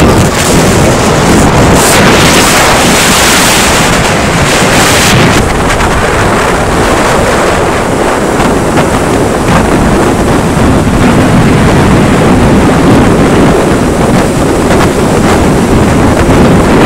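Loud wind buffeting the microphone of a motorcycle riding at highway speed, mixed with the rush of the ride. The hissing top eases about five seconds in.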